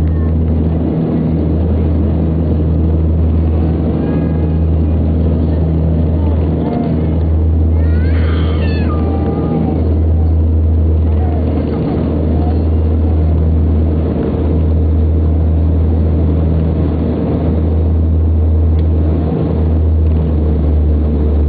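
Steady drone of an aircraft's engines heard inside the cabin, a deep hum that swells and dips slightly every couple of seconds. A brief high wavering sound rises and falls about eight seconds in.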